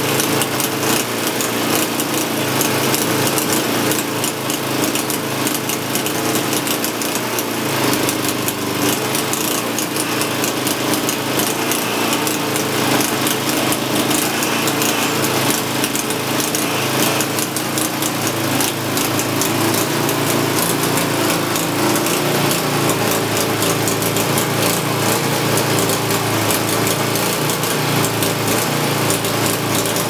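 Homemade band sawmill powered by a V-twin motorcycle engine, running steadily under load as the blade cuts lengthwise through a large log.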